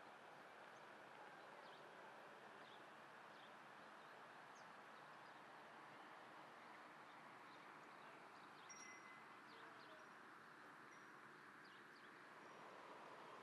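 Near silence: a faint, steady outdoor background hiss with a scattering of faint, short high chirps.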